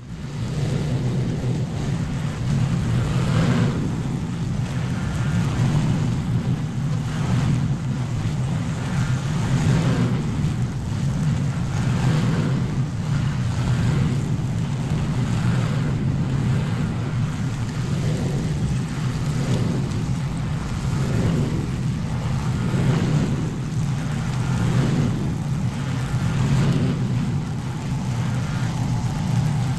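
Stand-on zero-turn lawn mower running steadily while cutting tall, overgrown grass. Its engine drone swells and eases every second or two as it works across the lawn.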